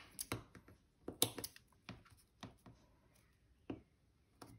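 Scissors snipping a small piece of red paper: short, separate cuts and clicks at irregular intervals, the loudest about a second in.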